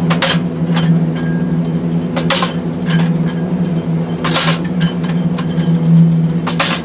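Heavy road-construction machine running with a steady low drone, with irregular sharp metal clanks and knocks over it.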